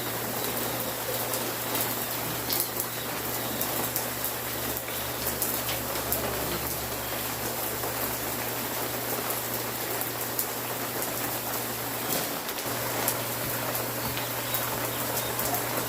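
Steady rain falling, an even hiss with scattered sharper drop hits, over a steady low hum that cuts out briefly near the end.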